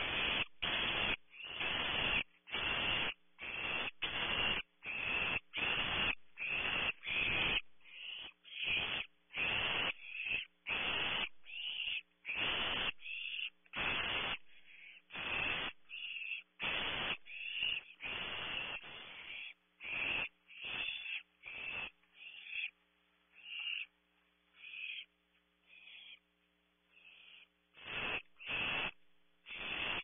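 Young barn owls in the nest cavity giving repeated rasping, hissing calls, each under half a second, nearly two a second: the food-begging hiss of barn owl nestlings. The calls thin out and grow fainter after about twenty seconds, then pick up again near the end.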